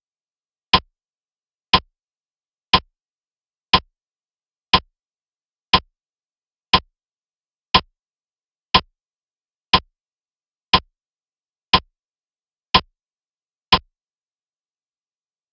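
Countdown clock-tick sound effect: fourteen sharp, evenly spaced ticks, one a second, stopping about two seconds before the end.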